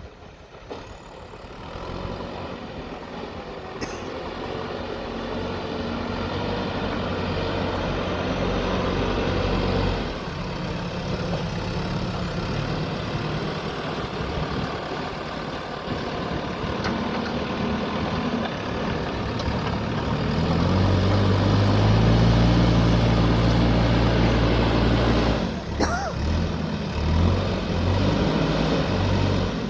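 Diesel engine of a JCB backhoe loader running and working. It grows louder over the first ten seconds, then revs up louder and higher about twenty seconds in. The revs drop back a few seconds later, with a sharp click as they fall.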